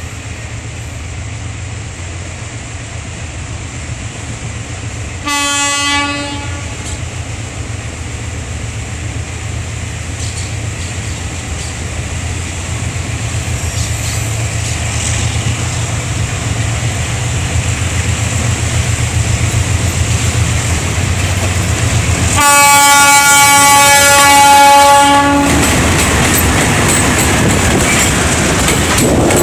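ALCO RSD-16 diesel locomotive approaching with a freight train: its engine rumbles steadily and grows louder as it nears. It sounds its horn twice, a short blast about five seconds in, then a longer, louder blast of about three seconds roughly three-quarters of the way through.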